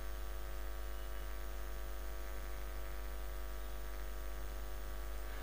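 Steady electrical mains hum with a stack of evenly spaced overtones over faint hiss.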